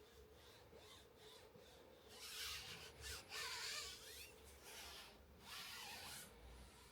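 Faint rubbing and scraping of something being handled, in a few strokes, the loudest a little past the middle, over a low steady hum.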